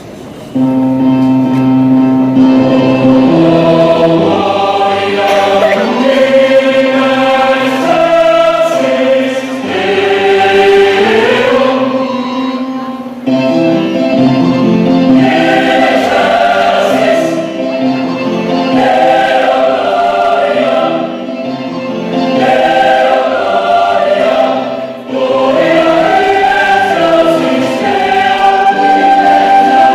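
A church youth choir singing a song in several parts, coming in about half a second in and carrying on with short dips at phrase breaks.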